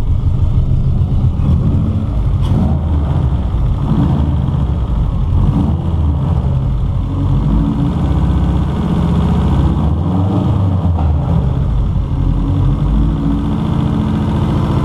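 Subaru Impreza GC8's freshly rebuilt flat-four boxer engine running at a steady idle, its pitch wavering a little now and then while it warms up.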